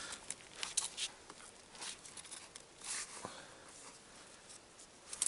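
Faint rustling and scraping of a thin willow sapling being bent and twisted by hand into a ring, with scattered small clicks from the bark and wood.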